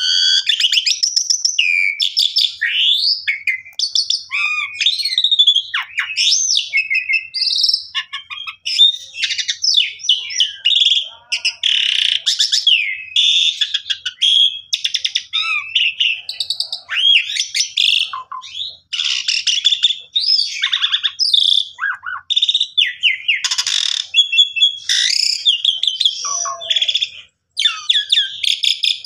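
Asian pied starling (jalak suren) singing hard, a long, nearly unbroken song of varied whistles, rising and falling sweeps and harsh chattering notes, full of filled-in phrases.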